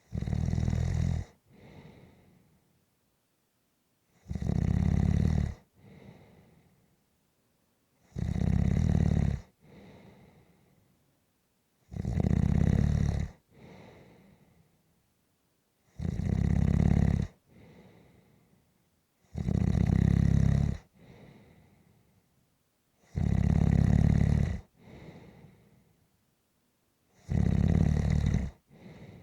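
Snoring in a steady sleep rhythm: a loud snore about every four seconds, each followed by a softer, shorter breath, with quiet in between.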